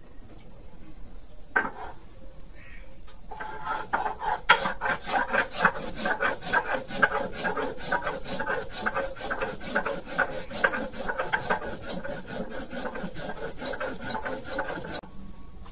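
Ginger and cumin seeds being ground on a sil-nora, a stone grinding slab with a hand-held stone roller. One knock a second or two in, then a long run of even grinding strokes, about three a second, that stops abruptly near the end.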